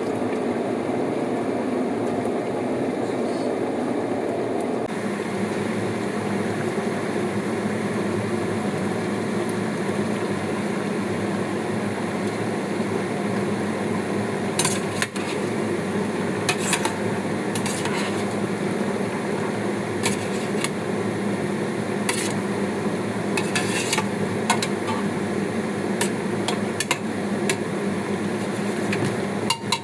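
Dishes and cutlery clinking and tapping several times in the second half, each with a short ring, over a steady background hum.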